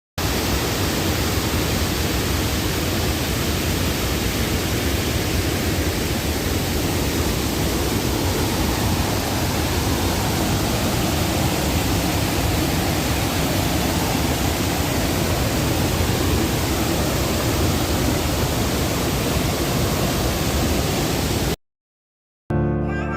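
Waterfall: a steady rush of falling water that cuts off abruptly near the end, followed after a second of silence by the start of music.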